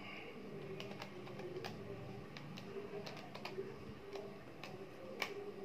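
Buttons on a handheld calculator being pressed one after another, a run of light, irregular clicks a few per second as a division is keyed in. The sharpest click comes near the end.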